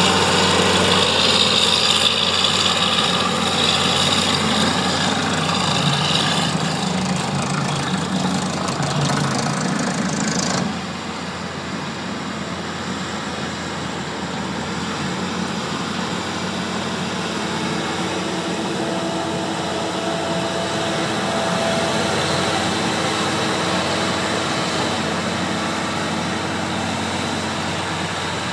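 Diesel engine of a wheel tractor-scraper running close by as it works the dirt. About ten seconds in the sound drops suddenly to a quieter, steady engine drone of earthmoving machines further off.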